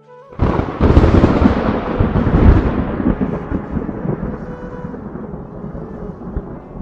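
Thunderclap sound effect: a sudden loud crash about half a second in, rumbling on and slowly fading over several seconds, with a soft held music note underneath.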